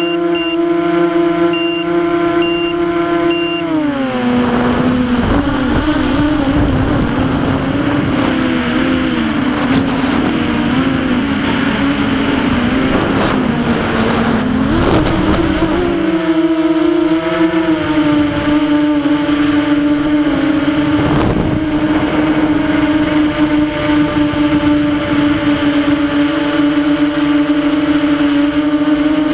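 F330 quadcopter's brushless motors and propellers whining at a steady pitch, heard from the onboard camera, with a few short high beeps in the first few seconds. About four seconds in, the pitch drops as the throttle comes off and wavers up and down through manoeuvres. About sixteen seconds in it climbs back to a steady hovering pitch.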